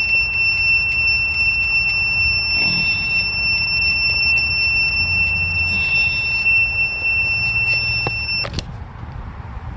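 Portable jump-starter/battery charger sounding a steady, high-pitched beep over a low rumble; the beep cuts off suddenly near the end. The owner takes the beeping as a sign that the charger is drained or dead.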